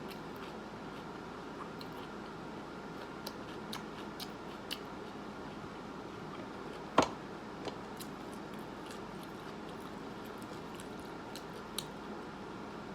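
A person eating: soft chewing and mouth clicks over a steady background hiss, with one sharper click about seven seconds in.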